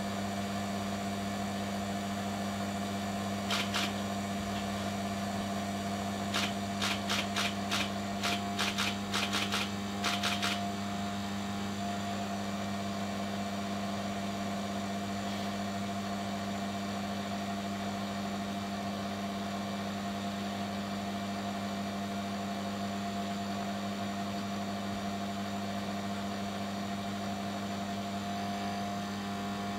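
Steady hum of the small electric motor on a rod-building turning machine as it runs. One sharp click comes a few seconds in, and a quick run of about ten clicks follows a few seconds later.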